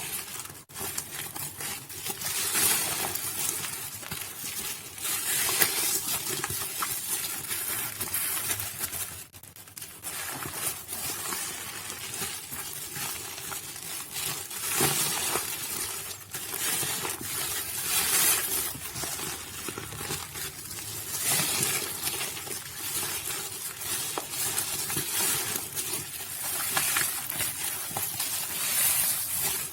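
Soaked Nuvo bar soap being crushed and squished: a dense wet crackling made of many small clicks, swelling in waves every few seconds.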